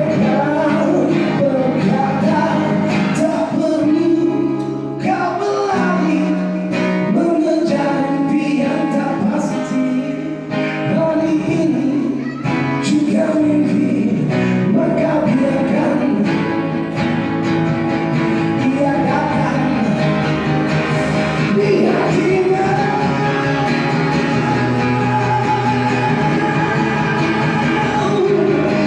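Band music: a song with singing over guitar.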